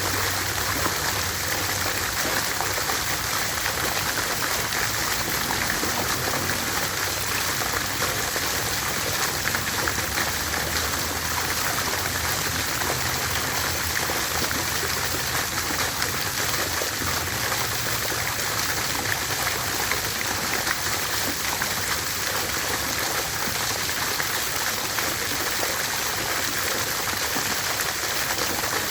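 Water fountain running, its falling water splashing in a steady, even rush.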